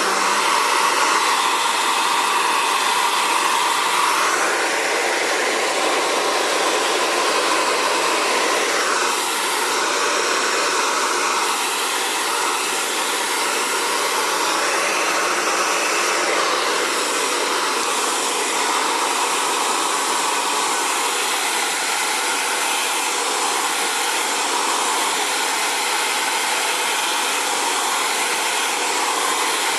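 Xtava Allure 2200-watt ionic ceramic hair dryer running steadily, blowing out natural curly hair; its rushing tone shifts a little now and then as it is moved through the hair.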